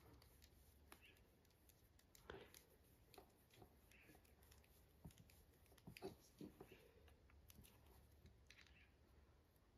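Near silence, with faint scattered clicks and handling sounds; the most distinct come about two and a half and six seconds in.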